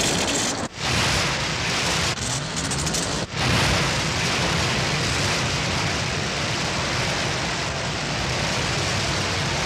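Sound effect of water rushing in to flood a launch dock: a loud, steady rush over a low hum. It breaks off briefly about a second in and again just after three seconds.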